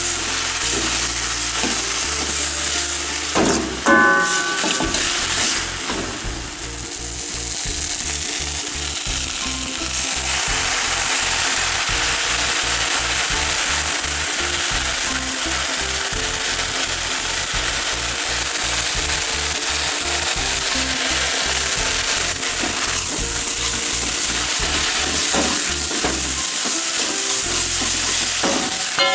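Yakisoba noodles, onion and sausage sizzling in a hot wok while being stirred and tossed with a metal ladle. The sizzle grows louder about ten seconds in, as sauce is squeezed onto the noodles.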